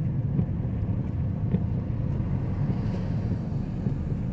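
Rain with wind buffeting the microphone: a steady low rumble of noise.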